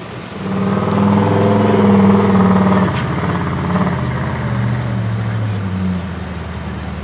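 A Proto-class trial truck's engine revving hard under load as the truck climbs a steep dirt mound. It comes up sharply about half a second in and eases off a little about three seconds in, when there is a single sharp click. It drops back near the end.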